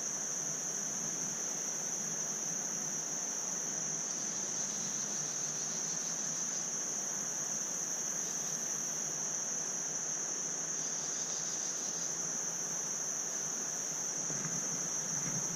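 A chorus of insects trilling: one steady, unbroken high-pitched trill that never stops. Beneath it is a low, even rush of flowing river water.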